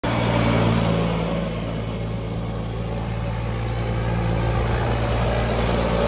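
Mahindra 395 DI Turbo tractor's diesel engine running steadily with an even low hum.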